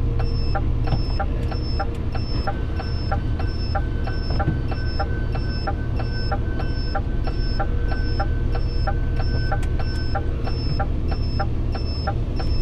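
Turn-signal indicator ticking steadily, a little over two clicks a second, over the constant low rumble of a truck's diesel engine.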